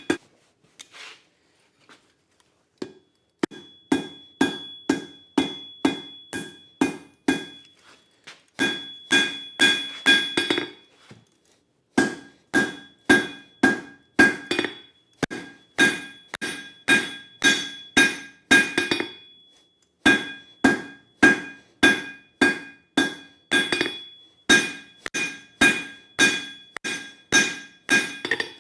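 Hand hammer striking coil-spring steel on an anvil in forging, about two blows a second in runs of several seconds with brief pauses between heats, each blow leaving a short metallic ring from the anvil.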